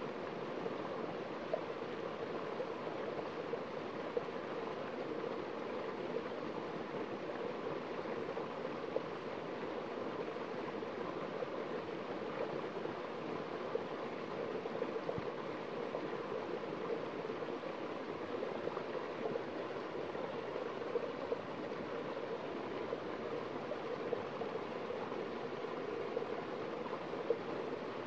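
Small waterfall on a rocky forest stream, water pouring over rocks into a shallow pool: a steady rush with occasional small splashes.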